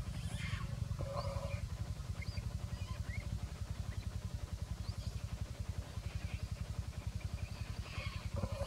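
Macaques screaming in a fight, with shrill calls about a second long near the start and again near the end, and a few short squeaks between them. A small engine runs steadily underneath as a low, rapid throb.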